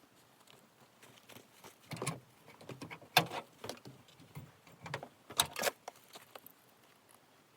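Horse tack being handled during saddling: scattered rustles and clinks, with louder knocks about two seconds in, just past three seconds, and a pair around five and a half seconds.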